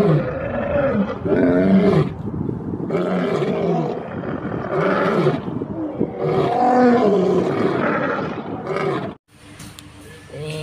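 Two male lions roaring together in overlapping, repeated calls that rise and fall in pitch, cut off suddenly near the end.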